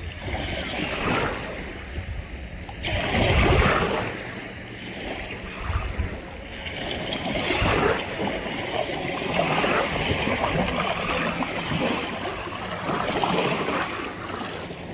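Wind gusting over the microphone in uneven swells, with a jet ski's engine droning faintly out on the lake.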